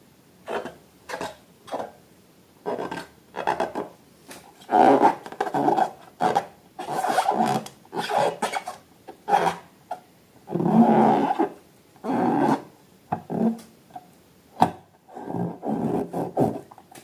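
Slime being squeezed and worked by hand: irregular squishing, rubbing strokes, some short and some drawn out to about a second.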